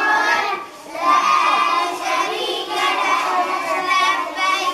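A group of young children chanting together in unison, with a short break a little under a second in.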